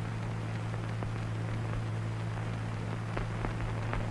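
Steady low hum and hiss from an old film soundtrack, with a few faint ticks.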